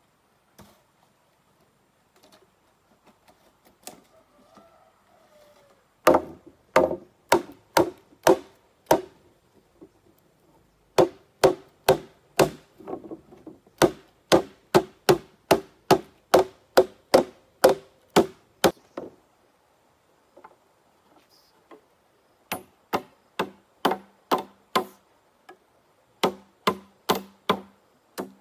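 Hollow bamboo being struck hard and repeatedly with a tool, about two blows a second, each with a short hollow ring. The blows pause for a few seconds around the middle, and when they resume the ring is lower in pitch.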